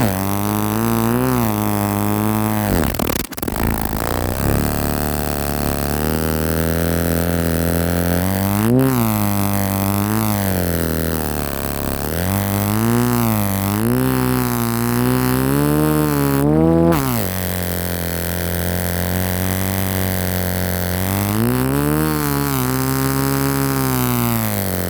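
Old motor's engine running with a steady low drone, its pitch briefly rising and falling again several times as it is revved, with a short dip about three seconds in.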